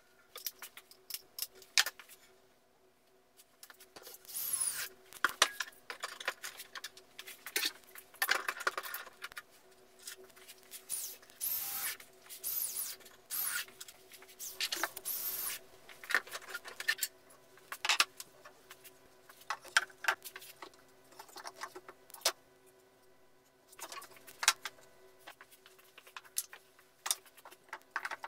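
Cordless drill spinning up in several short runs to drive screws into a wooden mold frame, amid clicks and clatter of tools and screws being handled.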